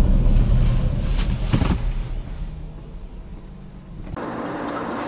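Road and engine rumble from inside a moving car, recorded by a dashcam, with a couple of sharp knocks about a second in during a collision ahead, then fading quieter. About four seconds in it cuts abruptly to a steadier engine hum from another car.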